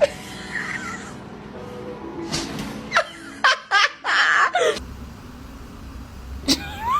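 A person laughing in short bursts over background music.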